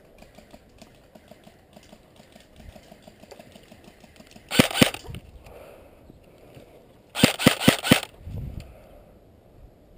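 Airsoft M4 rifle firing: two sharp shots about four and a half seconds in, then a quick string of four about seven seconds in.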